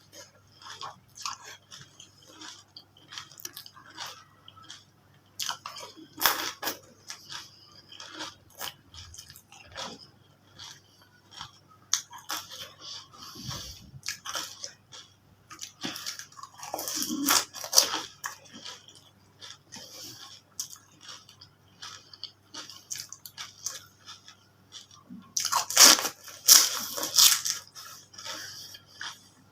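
Close-up eating sounds of fuchka: crisp hollow puri shells crunching between the teeth, with wet chewing and squishing from the filling, in irregular bites. The loudest crunches come in clusters, the strongest near the end.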